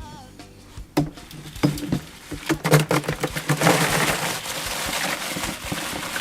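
Boiled crawfish being dumped out: a sharp knock about a second in, a run of clatters, then a steady rattling rush of shells.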